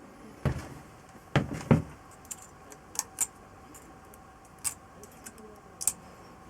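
A few dull knocks, then scattered sharp metallic clicks and clinks, as metal engine parts are handled and set down on a workbench.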